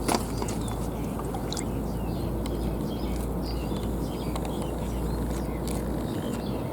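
Steady low outdoor rushing noise with faint scattered chirps, a single sharp click right at the start, and a deep rumble that drops away about six seconds in.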